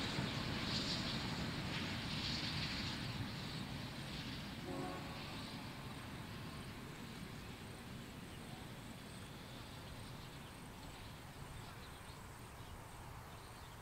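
Steam locomotive 3801 working its passenger train away, the sound of its exhaust and the train fading steadily as it draws off. A short pitched call is heard about five seconds in.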